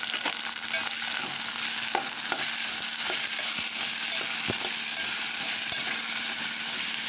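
Hot oil sizzling under sliced spine gourd pieces being stirred with a spatula in a metal pot, with a few sharp clicks of the spatula against the pot.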